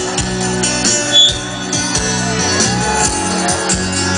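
Live sertanejo band playing an instrumental passage between sung lines, with sustained chords over a steady beat of percussion hits. A short high tone cuts through about a second in.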